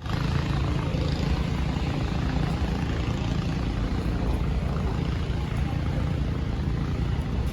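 Boat engine running steadily, a low drone with no change in speed.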